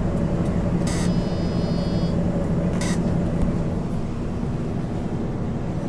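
A 1999 MAN ÜL 353 intercity bus with its diesel engine running, a steady drone. About a second in comes a short hiss with a ringing high tone in it, and a second brief hiss follows shortly before the three-second mark.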